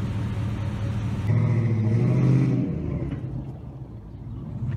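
2005 Cadillac Escalade's 6.0-litre V8 running, its revs rising briefly about a second in and falling away again by about three seconds in, after a freshly replaced radiator has been refilled.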